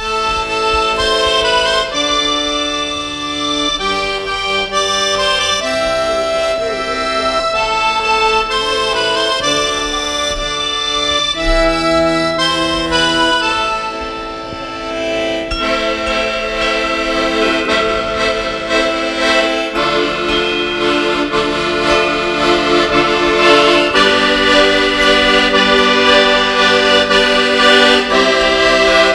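Accordion playing a slow melody over held chords, growing fuller and louder about halfway through and again near the end.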